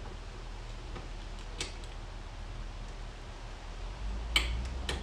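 A few light clicks and taps of small parts being handled and fitted on a supercharger and intake assembly, the loudest two near the end, over a low steady hum.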